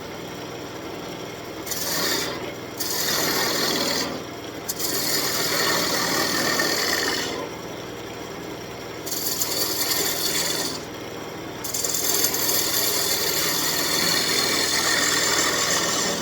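A turning tool cutting an elm blank spinning on a wood lathe: a rough scraping of tool on wood in several passes, stopping briefly a few times. A steady low hum from the running lathe carries on through the gaps.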